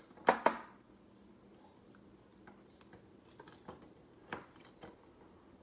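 Rigid plastic card holders clacking against Lego-brick stands and the tabletop as they are stood up: two sharp clacks close together near the start, then soft scattered ticks and taps.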